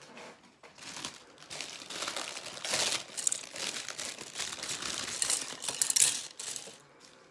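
Clear plastic packaging crinkling and rustling in irregular bursts as glittery heart picks are pulled out of their bag.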